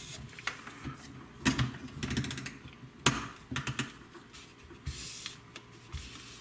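Plastic shrink-wrap film crackling and clicking as it is smoothed by hand and tacked to a coil core with a small craft heat iron: scattered sharp clicks, with a quick run of about eight clicks about two seconds in.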